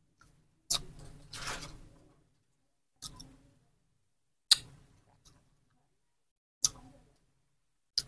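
A handful of light, sharp clicks and taps, about five spread over several seconds, with a short rustle about a second and a half in and near silence between them.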